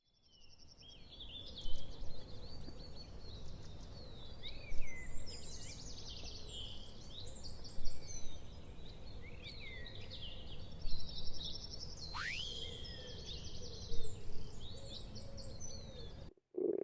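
Birds chirping and trilling over a steady outdoor background hiss, with a louder burst of song about every three seconds. Just before the end the birdsong cuts off and a stomach growl begins.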